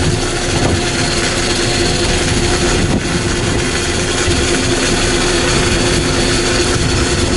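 A sportfishing boat's engines running steadily under way, a constant hum over a rushing noise.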